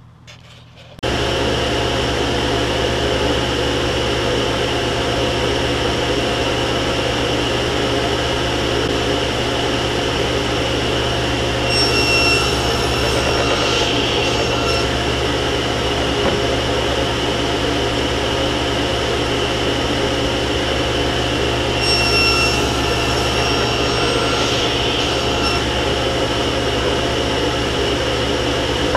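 Table saw running steadily. Twice, around 12 s and again around 22 s, the note brightens and gets louder for a few seconds as the blade cuts a partial-depth tenon cut across the end of a wooden board pushed through on a crosscut sled.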